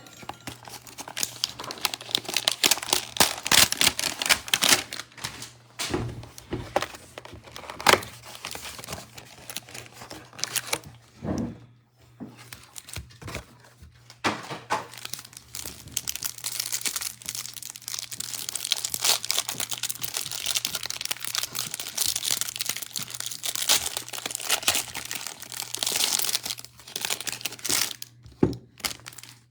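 Plastic wrapping on a hanger box of trading cards being torn open and crinkled by hand, a long irregular run of crinkling and tearing with a few sharp clicks and short pauses.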